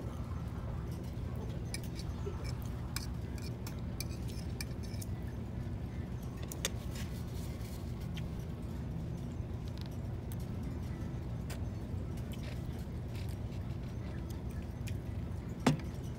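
Restaurant room noise with a steady low hum, and scattered light clinks of a fork and dishes against a plate, with one sharper clink near the end.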